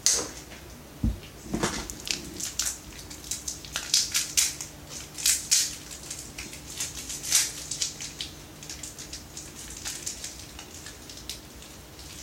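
Toy packaging being worked open by hand: irregular crinkling and crackling, busiest in the first eight seconds and thinning out after, with one dull knock about a second in.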